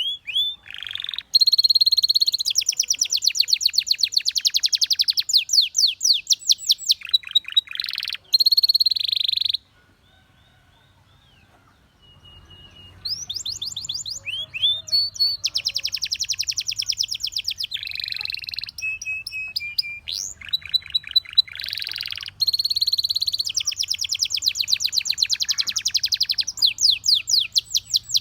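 Domestic canary singing fast trills and rolls: long runs of rapidly repeated notes, some gliding, in phrases broken by a pause of a couple of seconds about ten seconds in.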